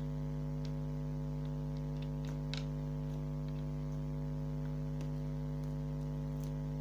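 Steady electrical mains hum on the recording, with a few faint soft clicks as the slime is worked by hand, the clearest about two and a half seconds in.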